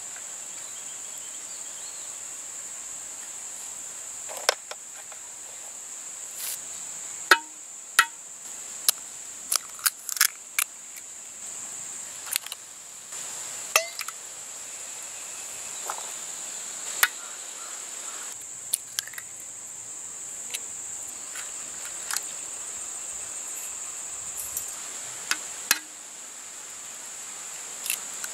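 Eggshells being cracked against a knife blade and a small metal bowl: a string of sharp, irregular clicks and taps. Under them runs a steady high insect drone.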